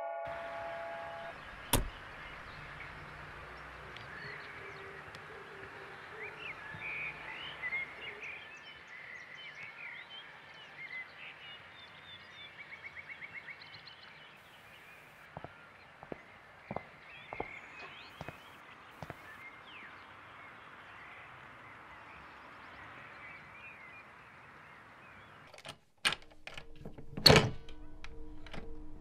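A car door shuts with a single thunk about two seconds in. Then come quiet outdoor ambience with scattered bird chirps and a few light knocks. Near the end a loud thunk comes as a wooden house door is pushed open, and a low drone starts under it.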